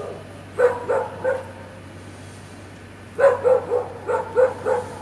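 A dog barking in two quick runs of short barks: about three a little under a second in, then about six more from about three seconds in.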